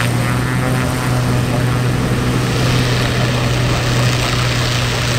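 Cessna 208B Grand Caravan EX's Pratt & Whitney PT6A-140 turboprop running at taxi power: a steady low propeller drone over a rushing noise as the aircraft taxies.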